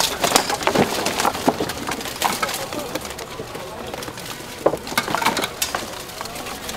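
Armoured buhurt melee: irregular knocks and clatter of weapons striking steel armour and wooden shields.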